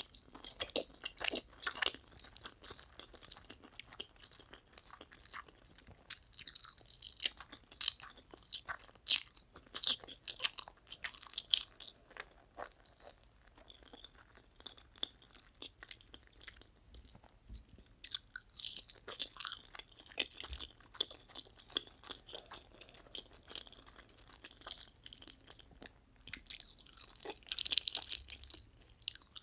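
Close-miked mouth sounds of eating spicy noodles: wet chewing and smacking, with louder slurping runs a few seconds in and again near the end.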